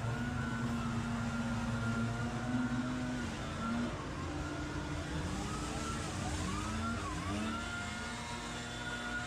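Engine of lawn equipment running steadily, its pitch sagging and recovering a few times about halfway through as the load changes.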